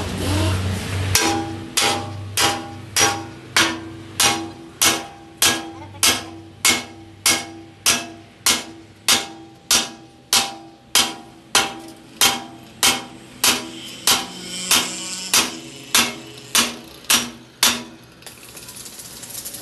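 Sledgehammer beating on a steel truck axle clamped in a straightening jig. Steady, evenly spaced blows, roughly one every 0.6 seconds, each with a short metallic ring. They start about a second in and stop near the end.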